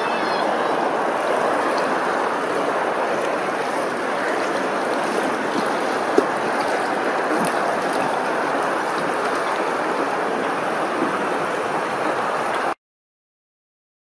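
Steady wash of moving water, with one sharp click about six seconds in. The sound cuts off abruptly shortly before the end.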